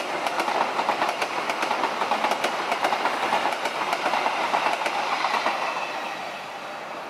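Passenger train coaches passing close by: a steady rumble of wheels on rail with a rapid run of sharp clicks as the wheels cross rail joints. The sound fades from about five and a half seconds in as the last coach moves away.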